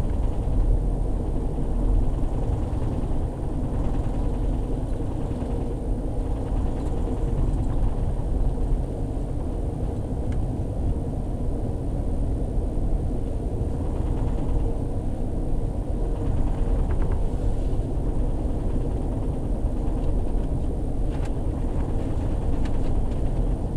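Amtrak Texas Eagle passenger train running at speed, heard from on board: a steady low rumble of wheels on rail and running gear, with a faint steady hum and a few light clicks near the end.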